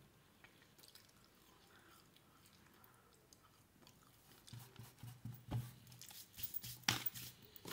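A person chewing food close to the microphone, faint at first, then louder chewing with crunches and a few sharp clicks in the second half.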